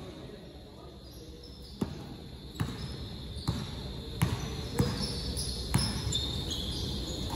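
Basketball being dribbled: a run of regular bounces, roughly one a second, starting about two seconds in.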